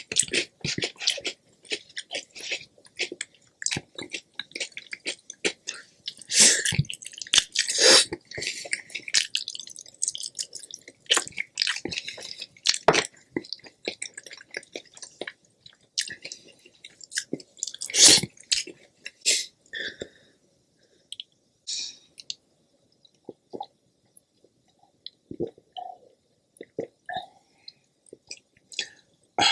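Close-miked chewing and eating sounds: wet, sharp mouth clicks and squishes, dense for about the first twenty seconds, then sparse and quieter.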